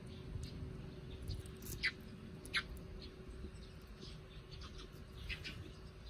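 Small bird chirping in short, sharp calls that each drop quickly in pitch: two louder chirps about two seconds in and a small cluster near the end. Underneath is a steady low rumble and a faint hum.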